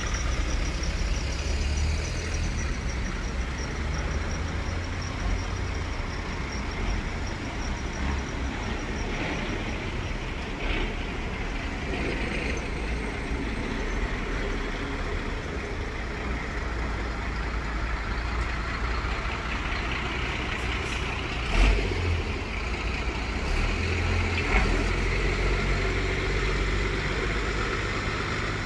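A slow line of trucks and recovery lorries passing, their diesel engines running at low speed with a steady low rumble. Brief sharp louder sounds come about three-quarters of the way through and again shortly after.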